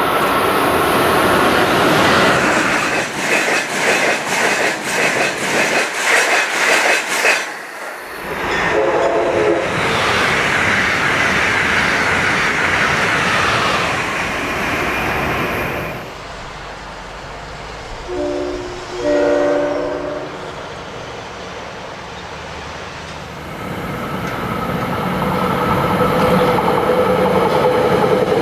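An electric passenger train passes at speed, with its wheels clicking rapidly over rail joints. Later a multi-note train horn sounds short blasts, and near the end the rumble of another approaching train builds.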